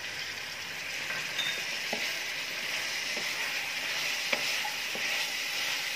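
Vegetables and chicken sizzling in hot oil in a pan as they are stir-fried with a wooden spatula, with a few light taps and scrapes of the spatula.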